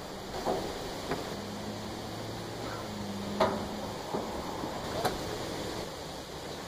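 Homemade plywood boat being slid across a floating dock's decking, giving several sharp wooden knocks and bumps, the loudest about halfway through.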